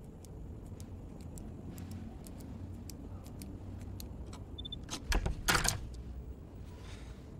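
Scattered light clicks over a low steady hum, then two louder thumps about five seconds in.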